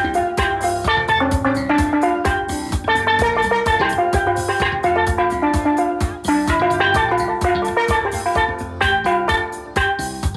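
Vistapan steel pan played with sticks in a quick melody of ringing struck notes, over a steady drum beat.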